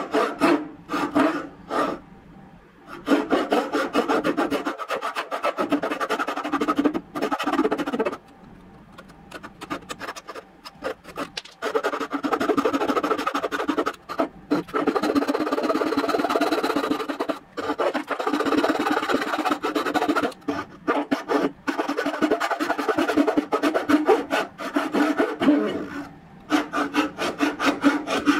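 Dovetail saw cutting a hardwood board by hand in quick, rasping back-and-forth strokes. The strokes come in several runs with short pauses between them.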